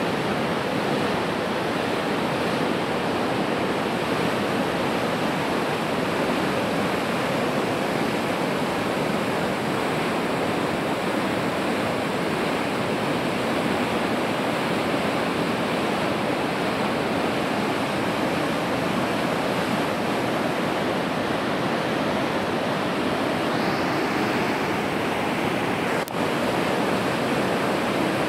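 A river in full flood: fast, turbulent brown floodwater rushing past in a steady, loud wash of noise, with one momentary break near the end.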